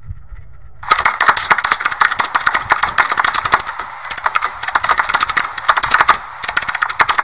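Typing sound effect: a fast, irregular clatter of keystroke clicks starting about a second in.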